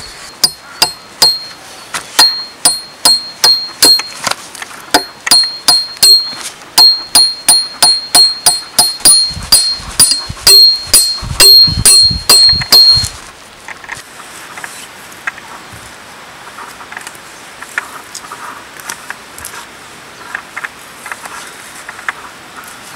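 A nail being hammered into a wooden log: sharp metal-on-metal strikes, about three a second, each with a high ring, heavier near the end. After about thirteen seconds the hammering stops and only faint rustling and light knocks remain.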